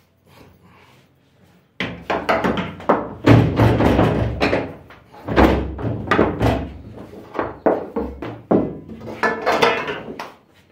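Repeated heavy thunks and clatter from a bakery dough divider being worked to cut the dough into pieces. They start about two seconds in.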